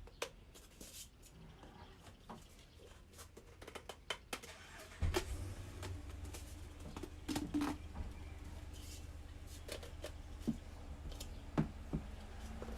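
Scattered light knocks, clicks and rubbing as aftermarket intake pipes, elbows and couplers are handled and pushed together for a test fit. A low steady hum comes in about five seconds in.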